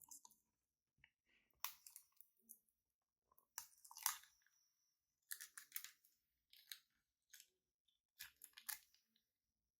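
Close-up crinkling and crackling handling sounds in short bursts, about five times, separated by silence; the loudest burst comes near the middle.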